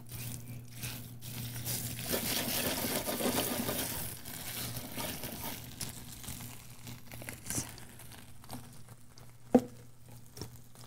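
Arctic char fillets sizzling and spitting as they go skin side down into hot olive oil in a frying pan. The sizzle is loudest a couple of seconds in and dies down after about six seconds, over a steady low hum, with one sharp click near the end.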